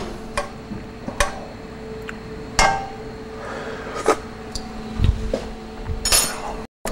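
Scattered knocks and clinks of metal kitchen utensils on pans and the counter, about six of them spread out, over a faint steady hum and the light hiss of a butter-and-lemon pan sauce reducing on the stove. The sound cuts out briefly near the end.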